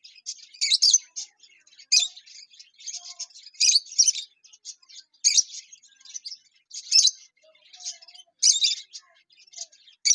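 Lovebirds chirping: a continuous run of quick, high chirps, with a louder, sharper call every second or so.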